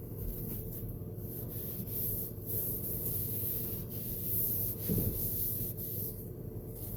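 Hand scrubbing and wiping of radial arm saw motor parts during cleaning, an uneven scratchy rubbing over the steady hum of a small vent fan.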